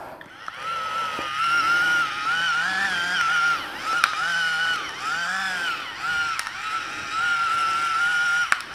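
Electric pepper mill grinding pepper: a steady motor whine that wavers a little in pitch, with a sharp click about four seconds in and another about six and a half seconds in, stopping just before the end.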